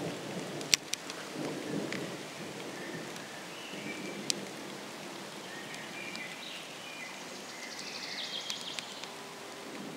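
Light rain with a low rumble of distant thunder, two sharp ticks, and faint bird chirps.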